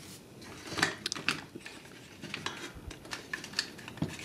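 Hard plastic parts of a Weaponizer Bumblebee action figure clicking and knocking against each other as they are handled and pushed into place during a transformation, in about a dozen short, irregular clicks.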